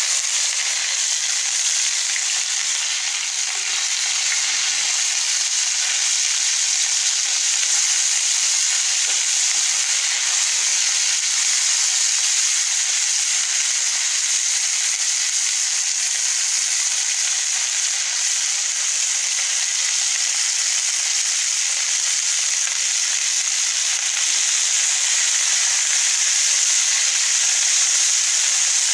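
Bitter gourd slices shallow-frying in hot mustard oil in a pan: a loud, steady, high sizzle.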